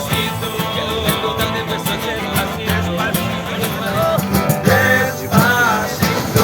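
A song with a singing voice over plucked guitar and a steady pattern of low notes.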